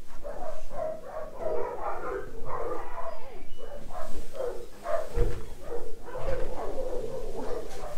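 Dogs barking repeatedly in the background, about three barks a second without a break, with two low thumps about five and six seconds in.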